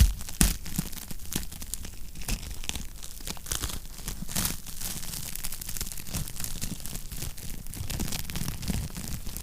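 Wood fire crackling in a fireplace: a steady run of irregular snaps and pops over a low rumble, with a sharp louder pop at the start and another about half a second in.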